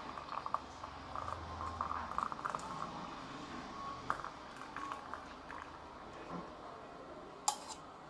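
Milky tea poured from a pan through a steel tea strainer into a mug, a thin stream trickling and tapering off. A light click about four seconds in and a sharper one near the end.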